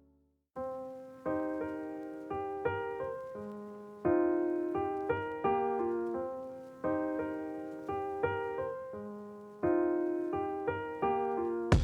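Background music on a piano-like keyboard: struck notes and chords that fade between strikes, starting about half a second in after a brief silence.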